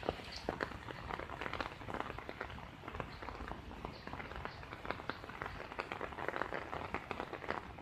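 Rain falling on shallow floodwater: an even wash of noise dotted with many irregular, sharp drop ticks and splashes.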